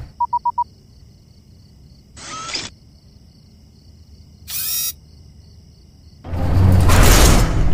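Trailer sound effects: four quick electronic beeps, then two short swishes, one about two seconds in and one about four and a half seconds in, over a faint high hum. A loud, deep whoosh sets in about six seconds in.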